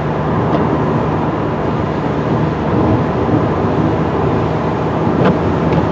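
Car driving along a highway, heard from inside the cabin: steady road and engine noise with a low hum.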